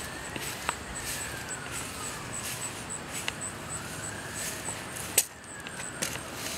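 Outdoor yard ambience with scattered steps and clicks on the paved path, the sharpest about five seconds in, over a faint high tone that slowly rises and falls twice.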